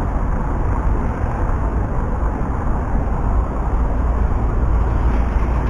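Steady road traffic on a busy city avenue: an even rumble and hiss of passing cars and buses.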